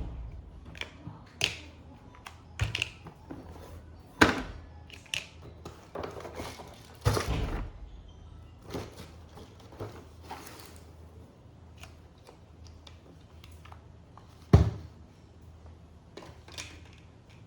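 Plastic toy and packaging being handled: a series of irregular knocks, clicks and short rustles, with two sharp knocks about 4 seconds in and near the end, and a longer rustle around 7 seconds in.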